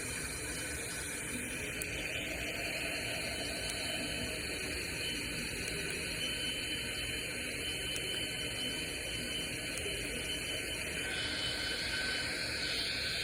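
Spirit box (SBox) giving a steady hiss of radio static, with faint tones in it that shift about 11 seconds in.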